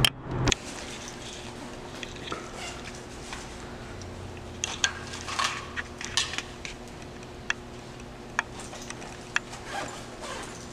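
Scattered clicks, clinks and rustles of items being handled while someone rummages through a bag, over a steady low hum.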